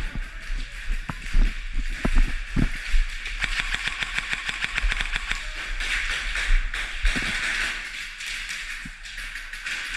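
Airsoft guns firing in fast, even strings of clicks, twice, among scattered knocks over a steady low rumble.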